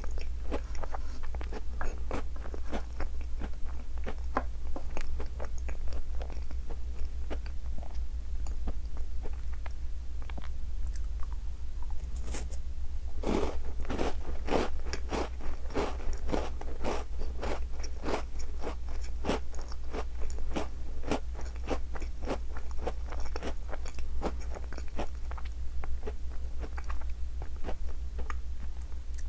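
Close-up eating of a chocolate-coated Tim Tam biscuit: crisp crunching bites and chewing, with the crunches coming thickest about halfway through. A steady low hum runs underneath.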